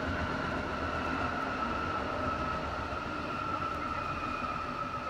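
A local passenger train passing at a distance: a steady rumble with a high whine that slowly falls in pitch.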